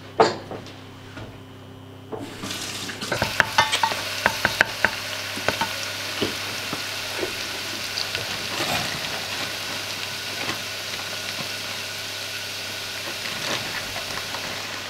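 Minced garlic sizzling in a stainless steel pot, stirred with a wooden spoon. A sharp knock comes just after the start; about two seconds in the sizzle starts with a flurry of pops and spatters, then settles into a steady sizzle.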